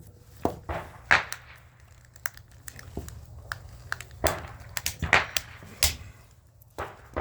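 Irregular clicks, knocks and light clatter of small metal and plastic parts and tools being handled while an electrical device is taken apart for scrap. The louder knocks come about a second in and again around four to six seconds in.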